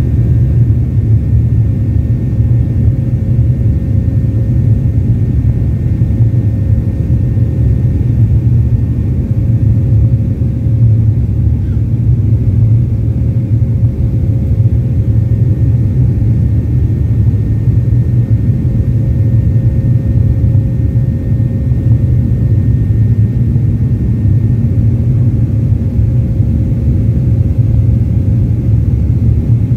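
Boeing 737 jet engines at climb thrust heard from inside the cabin: a loud, steady low rumble with a faint steady whine above it.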